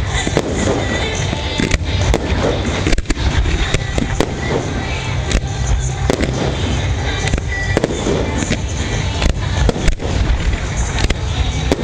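Fireworks display: a dense, continuous run of sharp bangs and crackling from aerial shells and a ground fountain, many reports close together.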